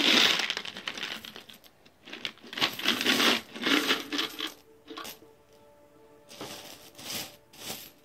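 Coins being poured out and handled for counting, jingling and rattling together in a series of short bursts.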